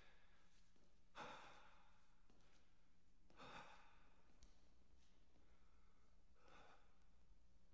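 A wounded man breathing heavily: three long, faint breaths a couple of seconds apart, over a faint steady hum.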